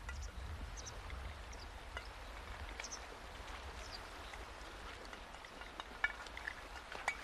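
Faint crunching and rustling of people moving through snow and brush, with scattered small clicks and a few sharper ticks near the end, over a steady low rumble.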